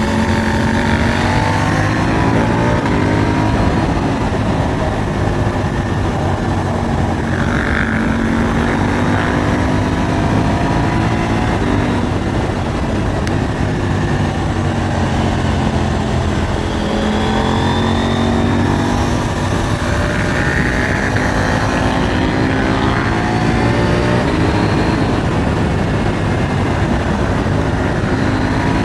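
KTM 890 Duke R's parallel-twin engine under way, its engine speed rising and falling several times as the rider accelerates and eases off, over steady wind rush.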